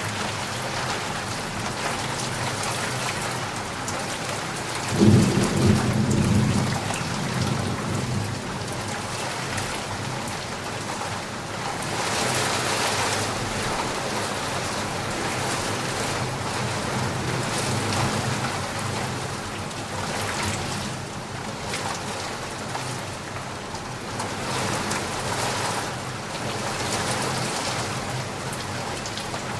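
Steady rain falling, with a single rumble of thunder about five seconds in that dies away over a second or two.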